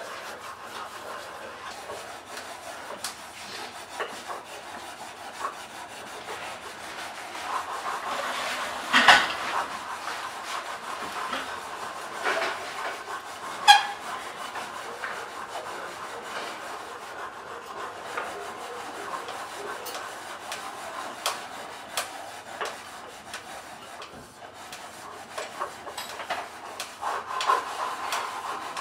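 Metalworking workshop sounds: steady rubbing and scraping, with a few sharp metal knocks that ring briefly. The loudest are a short cluster about nine seconds in and a single strike near fourteen seconds.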